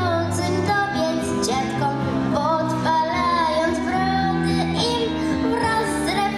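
A young girl singing a melody into a microphone over instrumental accompaniment, amplified through a stage sound system.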